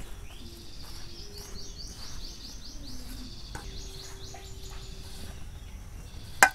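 A bird calling in two runs of rapid high chirps, about six a second, over quiet outdoor ambience, with a single sharp knock near the end.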